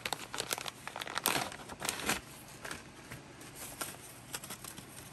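Packaging crinkling and rustling as seed packets are taken out of a cardboard shipping box by hand. It is busiest in the first two seconds and fainter after.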